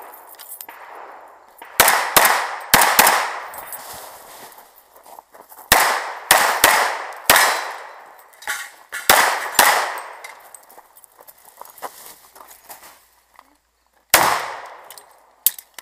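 Semi-automatic pistol fired in quick pairs and short strings, about a dozen shots with pauses between the groups, each shot sharp with a short echoing tail; the last shot comes near the end after a longer gap.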